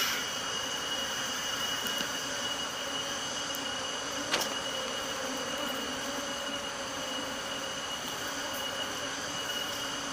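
Asian honeybees (Apis cerana) buzzing steadily around their opened nest in a rat hole, under a steady high-pitched whine. A single sharp click about four seconds in.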